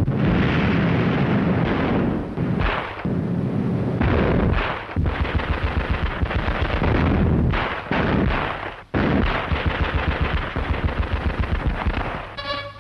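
Battle sound effects: rapid bursts of machine-gun fire mixed with heavy artillery booms and explosions.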